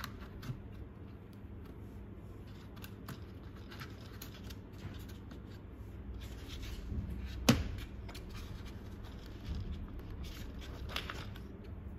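Small metal watchmaker's tools being handled and set into the moulded tray of a Bergeon 7813 kit's plastic case: light clicks and rustles, with one sharp click about seven and a half seconds in.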